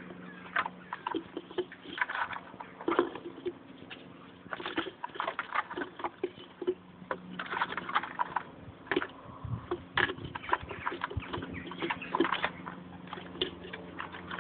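Caged male twites giving a run of short twittering calls and chirps, many brief notes in irregular clusters, over a faint steady low hum.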